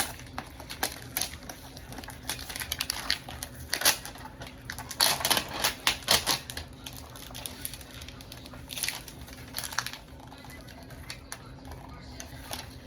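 Small plastic toy pieces and packaging being handled and unwrapped: a run of irregular clicks, taps and crinkly rustles, with a few louder crinkles around the middle.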